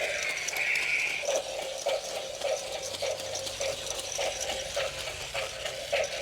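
Toy raptor dinosaur's battery gear motor running as it walks forward, its walking mechanism clicking in a steady rhythm a little under two strokes a second.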